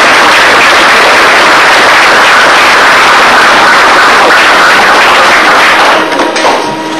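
Audience applauding, loud and close to the microphone, dying away about six seconds in.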